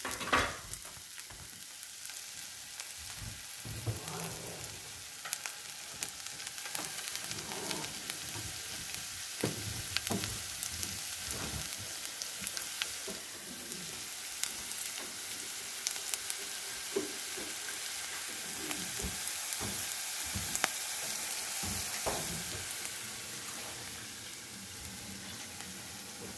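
Ginger frying in hot oil in a pan, sizzling steadily, while a utensil stirs it with frequent clicks and scrapes against the pan; the loudest knock comes just after the start.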